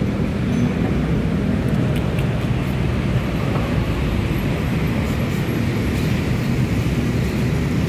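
Steady low rumble of motor vehicles and engines, like road traffic, with no single event standing out.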